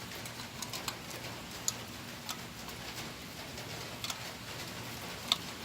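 Scattered light metallic clicks and ticks of tools working a bolt as a homemade valve spring compressor is screwed down against a valve spring, with two sharper ticks, one near the start and one near the end.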